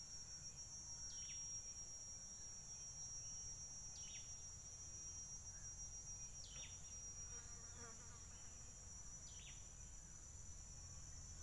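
Faint steady high-pitched insect buzz, with a short falling call repeating four times, about every two and a half seconds.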